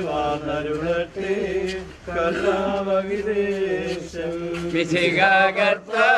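Voices singing a Malayalam Christian funeral hymn in a slow chanting style, over a steady low hum.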